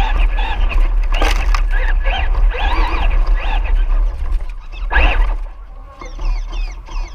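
Crowd of people talking and calling out over one another, over a constant low hum. Near the end a high warbling tone repeats several times.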